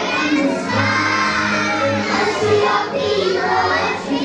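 A group of young preschool children singing a song together in unison.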